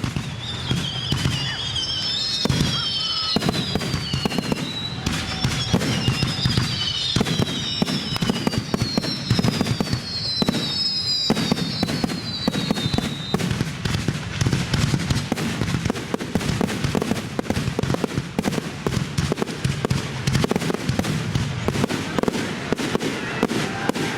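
Fireworks finale: a dense, continuous barrage of rapid bangs and crackles, with several high whistles falling in pitch over roughly the first half.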